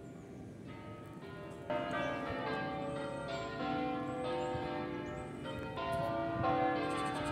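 Several large church bells swinging together in a full peal (Italian 'distesa'), their strokes overlapping in a dense, irregular jumble. Fainter bell tones come first, and the peal gets suddenly louder about two seconds in.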